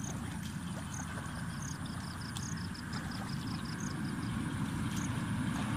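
Hands sloshing through shallow muddy water under a steady low rumble, with a run of rapid high-pitched chirps, about eight a second, from about one and a half to four seconds in, and single chirps before and after.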